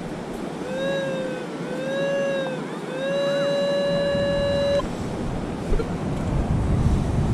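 Metal detector's audio tone answering a buried target: three sweeps whose pitch rises and falls, then one held tone for nearly two seconds that cuts off suddenly. Surf and wind run underneath.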